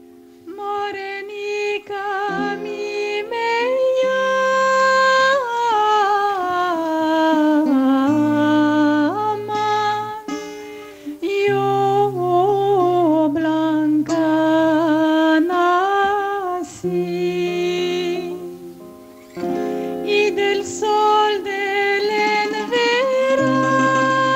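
A woman singing a slow Judeo-Spanish song melody with vibrato, accompanied by plucked acoustic guitar and mandolin and long, held double-bass notes.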